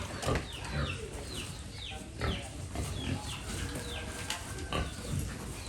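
Several pigs squealing: many short, high cries that fall in pitch, overlapping and coming in quick succession.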